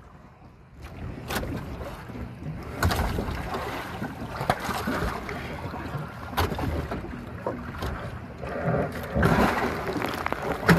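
Wind on the microphone and sloshing water, with a few sharp knocks against a wooden outrigger boat's hull as a diver in a wetsuit climbs aboard.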